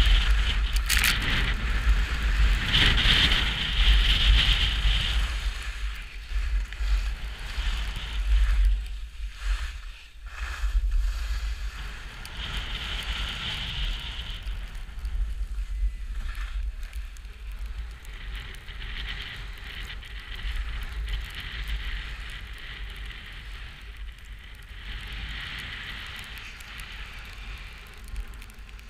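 Wind buffeting a GoPro's microphone during a ski run, a steady low rumble, with recurring hissing swells of skis scraping and sliding over the snow through the turns. The hiss is strongest in the first five seconds and fades lower toward the end.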